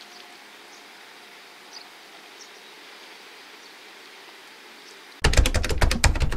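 Faint outdoor ambience with a few small high chirps, then about five seconds in an abrupt, loud typewriter-style clicking sound effect, a rapid run of keystroke clicks.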